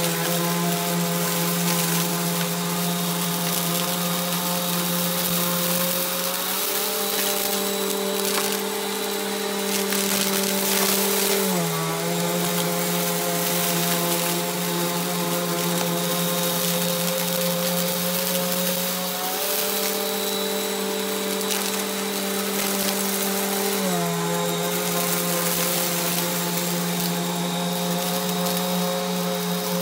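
Bissell compact upright vacuum cleaner running steadily over shag carpet, its motor hum stepping slightly higher and back down twice. Crunchy crackle of lint and debris being sucked up comes through over the motor.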